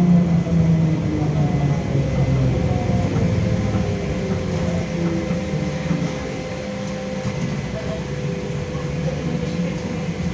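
Trolleybus in motion: the DK-213 DC traction motor of a LiAZ-5280 whines in tones that glide up and down with speed, over a steady running rumble, heard from inside the passenger cabin.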